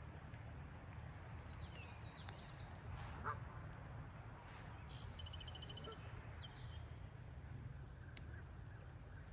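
Faint bird calls over a steady low rumble, with a quick trill of repeated high notes about halfway through.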